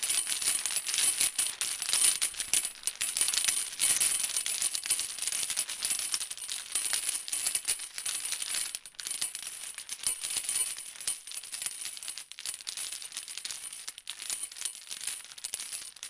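Dense crackling and fizzing, presented as the sound of a bacteria-filled pond-water sample, with a steady high-pitched whine over it. It grows somewhat quieter in the second half.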